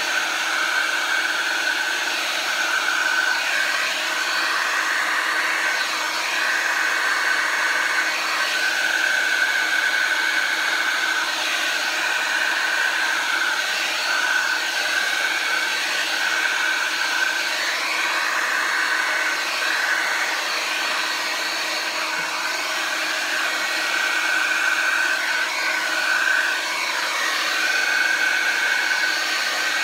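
Handheld blow dryer running continuously, blowing acrylic pour paint across a canvas. A steady high whine over rushing air, dipping in pitch briefly now and then.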